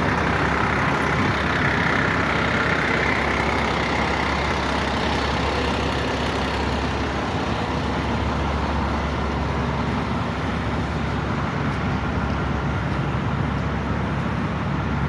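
A vehicle engine running steadily, with a constant low hum under a continuous noisy hiss.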